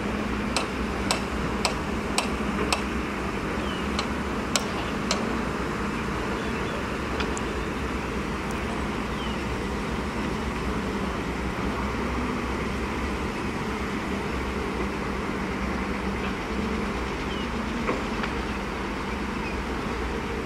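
Diesel engines of a dump truck and a small crawler bulldozer running steadily. Over the engines come a string of sharp clicks, about two a second for the first few seconds, and a few more scattered clicks shortly after.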